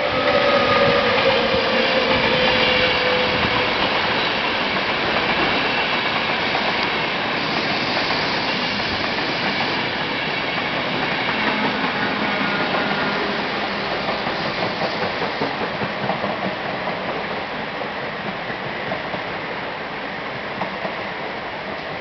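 Express train behind an ÖBB Taurus electric locomotive passing through at speed: a whine that falls in pitch over the first few seconds, then the steady rush and rhythmic clatter of the passing carriages, slowly fading toward the end.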